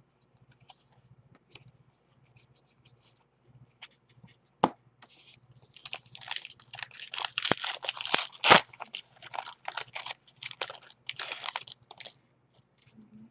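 Packaging of 2017 Diamond Kings trading-card packs being torn open and crinkled. It starts with faint handling ticks and a sharp click, then turns to dense crackling and tearing for several seconds, with a loud snap partway through.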